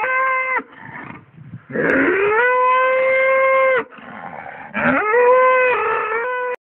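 Cattle mooing: the end of one moo, then two long moos of about two seconds each, each rising in pitch, then holding steady and cutting off sharply.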